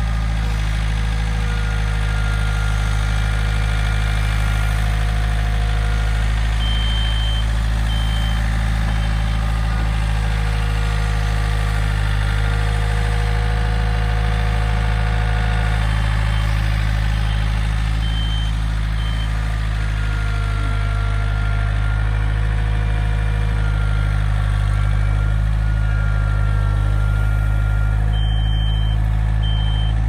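Backhoe engine running steadily at a constant low speed, a continuous low hum with no revving.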